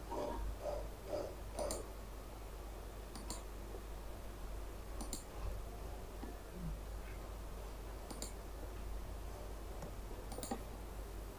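Computer mouse button clicking about five times, a couple of seconds apart, over a low steady hum.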